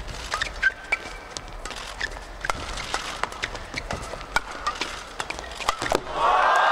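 Badminton doubles rally: sharp pops of rackets hitting the shuttlecock and short squeaks of shoes on the court surface, irregularly spaced. About six seconds in, a burst of shouting and cheering starts as the rally ends.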